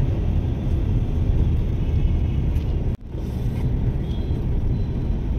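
Steady low rumble of a vehicle moving through city traffic, with a momentary dropout about three seconds in.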